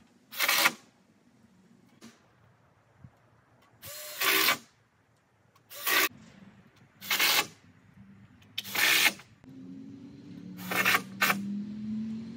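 Power drill driving 1-inch truss screws through galvanized sheet-metal truss plates into a wooden truss, in seven short bursts of about half a second each, spaced one to four seconds apart. A steady low hum comes in over the last few seconds.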